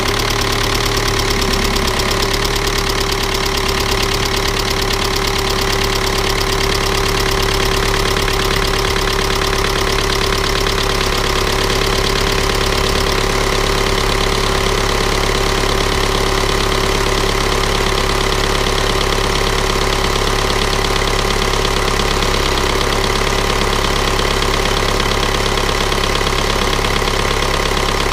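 Volkswagen 1.9 TDI 110 hp four-cylinder turbodiesel idling steadily with the engine still cold, moments after a start at −16 °C.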